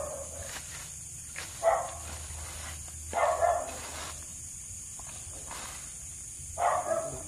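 A dog barking a few times, each bark short and the barks spaced a second or more apart.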